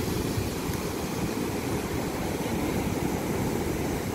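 Ocean surf breaking and washing up a sandy beach, a steady rush of water, with a low rumble of wind buffeting the microphone.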